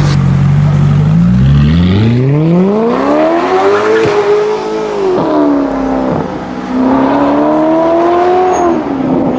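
Mercedes-Benz SLS AMG's V8 with an aftermarket exhaust, idling, then revs climbing smoothly for a few seconds, easing back, climbing again and dropping near the end.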